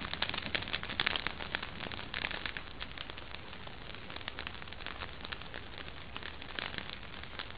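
Wood fire crackling in an open fireplace: many small pops and snaps over a soft hiss.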